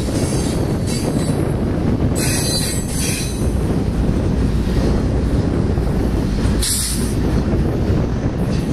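Freight train cars rolling past with a steady low rumble. Wheels squeal against the rail about two seconds in, lasting just over a second, and squeal again briefly a few seconds later.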